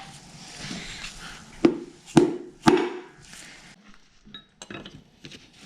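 A hammer tapping a piston down into the cylinder bore of a Toyota 7M-GTE engine block: three sharp knocks about half a second apart, then a few light metal clinks.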